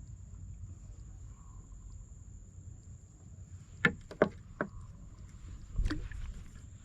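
Outdoor ambience from a small fishing boat: a low steady rumble under a thin, steady high-pitched insect drone. Three sharp knocks come in quick succession about four seconds in, and another follows about two seconds later.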